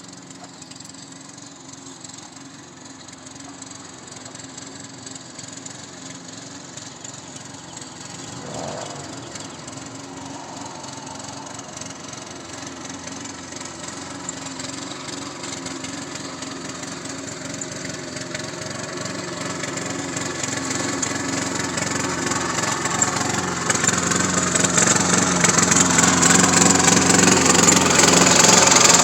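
Small engine of a radio-controlled lawn mower running steadily, growing gradually louder throughout.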